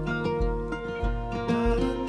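Background music with sustained tones over a steady, deep, slow beat.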